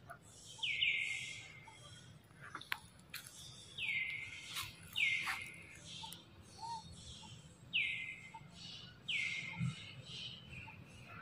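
A bird calling repeatedly, about six times, often in quick pairs: each note drops sharply in pitch and then holds steady for about half a second. A couple of faint clicks come in between.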